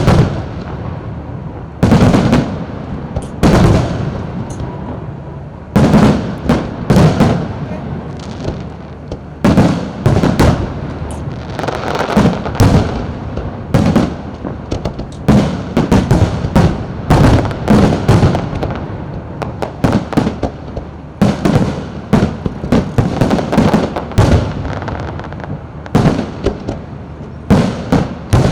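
Fireworks display with aerial shells bursting one after another, a loud bang every second or so, each followed by echoing crackle.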